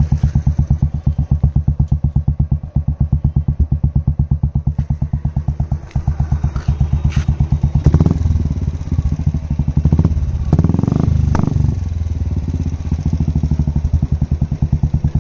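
Royal Enfield Classic 350's single-cylinder carburetted engine through a Shark aftermarket exhaust, idling with a loud, even thump. It is revved up about eight seconds in and again around ten to eleven seconds, with a few sharp pops and crackles from the exhaust.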